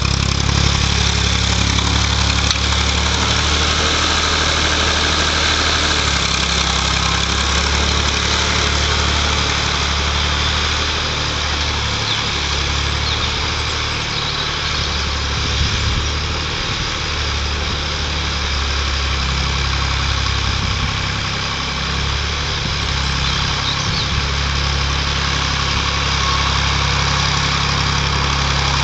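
Massey Ferguson 135 tractor engine running steadily while pulling a plough through the soil, with slight dips in loudness twice.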